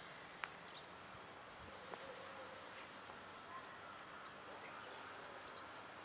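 Faint outdoor room tone: a steady low hiss with a few faint, short high chirps scattered through it and a single soft click about half a second in.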